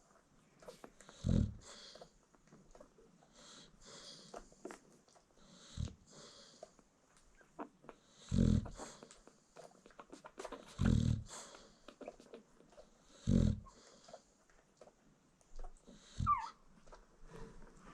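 A nursing American Bully mother dog snoring in her sleep: six deep snores, roughly every two to three seconds, with softer breathy noise between them. A short, high squeak falls in pitch near the end.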